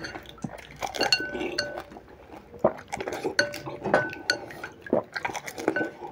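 Fingers and puri shells dipping into a glass bowl of tamarind water: quick, irregular clinks against the glass, some ringing briefly, with the liquid sloshing.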